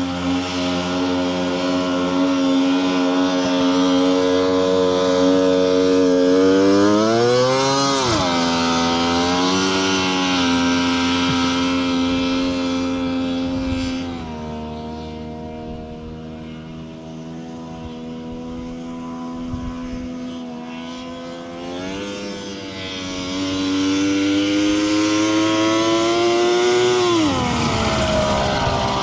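1993 Polaris 650 triple EFI two-stroke snowmobile engine powering a go-kart buggy, running at a steady pitch with two rises in revs that each drop off sharply, one about a quarter of the way in and one near the end, and a quieter stretch in the middle. Its CVT belt is slipping the whole time.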